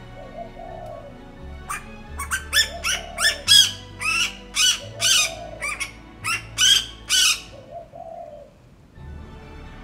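Asian koel calling loudly: a rapid run of about fifteen sharp, harsh notes, between roughly two and seven and a half seconds in.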